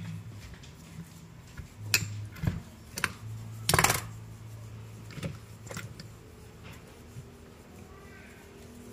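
Steel diesel injection pump parts (plunger elements, springs and tappets) clinking and knocking against each other as they are handled and set down in a parts tray: a few separate clicks, the loudest a quick rattle about four seconds in, over a faint low steady hum.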